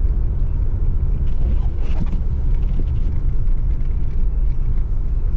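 Steady low rumble of a car driving on a snowy, slushy road.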